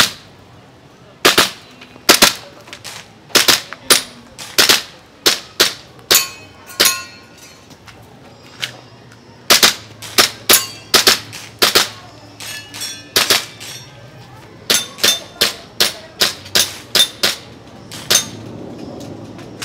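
Pistol shots fired in quick strings of about two or three a second, with short pauses between strings, around thirty-five shots in all.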